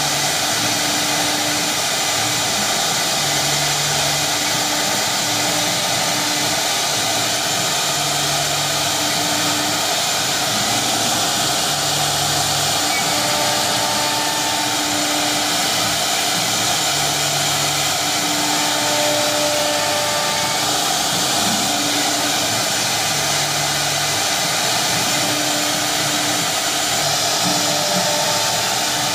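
Three-spindle CNC router running as it carves a board: a steady high-pitched hiss and whine from the spindles and cutting, with short low hums that come and go every few seconds as the head moves.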